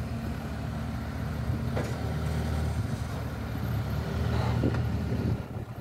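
Excavator's diesel engine running under hydraulic load as its bucket pushes a ferry ramp off the riverbank. The engine note swells about four seconds in, then drops away abruptly just before the end.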